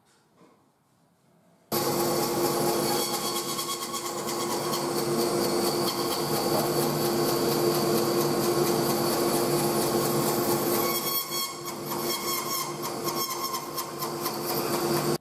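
Bandsaw running and cutting into the end of a turned maple table leg: a steady hum and whine over the noise of the blade in the wood. It starts suddenly a couple of seconds in, wavers a little near the end, then stops abruptly.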